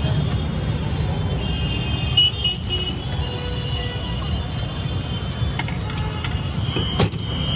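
Steady rumble of busy road traffic with music playing over it, and a sharp click near the end.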